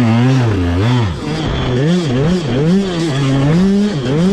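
KTM 200SX single-cylinder two-stroke dirt bike engine revving hard, its pitch rising and falling about twice a second as the throttle is worked over a run of whoops.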